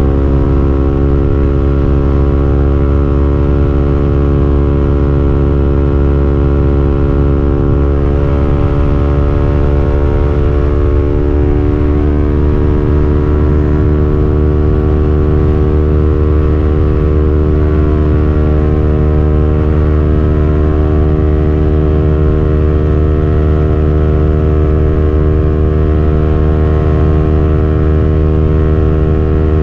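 KTM Duke 200's single-cylinder four-stroke engine running steadily under way, heard from on board the motorcycle. The revs climb gently about ten seconds in, hold steady, and fall off right at the end.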